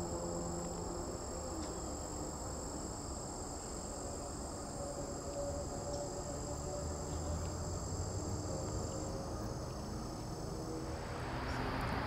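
Steady high-pitched insect trills, holding as continuous tones, over a low rumble. A broad hiss comes up about a second before the end.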